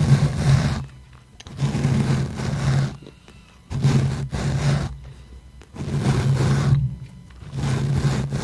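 Slow, rhythmic rubbing strokes directly on the microphone: five long strokes about two seconds apart, each with a low rumble. This is the wiping of a face-cleansing role-play.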